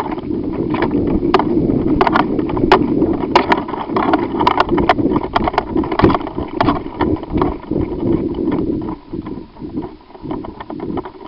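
Footsteps and rustling through vegetation, with many sharp crackles and clicks over a heavy, uneven rumble of wind and handling noise on the microphone. It becomes quieter and sparser about nine seconds in.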